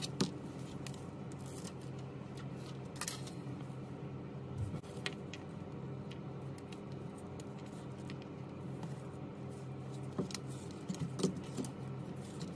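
Scattered small clicks and taps from handling an iPhone's display assembly and its small parts, with a sharper click about three seconds in and a few more near the end, over a steady low hum.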